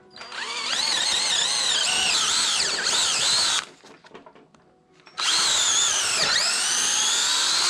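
Power drill boring a pilot hole into a wooden post for a half-inch lag bolt, in two runs of about three seconds each, its whine wavering in pitch as the bit bites into the wood.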